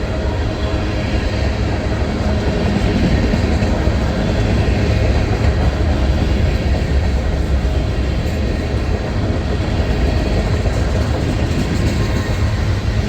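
Freight cars, hoppers among them, of a long CSX mixed freight train rolling past: a steady low rumble of steel wheels on rail.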